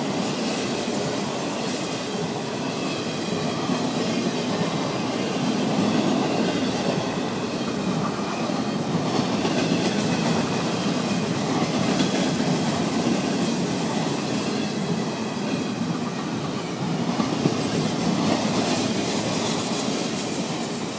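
Double-stack intermodal container cars of a Florida East Coast Railway freight train rolling past at speed: a steady rolling noise of steel wheels on the rails, with faint high ringing tones above it.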